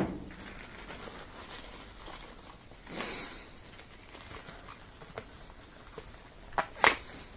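Handling noises of parts and tools: a brief rustle about three seconds in, a few light clicks, and two sharp knocks close together near the end, the loudest.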